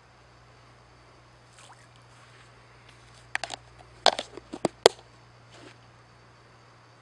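A quick run of sharp clicks and knocks, about eight in a second and a half, starting a little past three seconds in, over a faint steady background.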